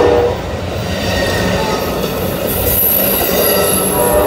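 Amtrak Coast Starlight Superliner bilevel passenger cars rolling past close by, their wheels rumbling on the rails. A high-pitched wheel squeal comes in a little past halfway and holds.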